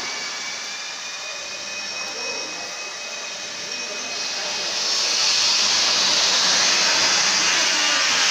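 Steady workshop machine noise: a hiss with a faint high whine, getting louder and hissier about halfway through.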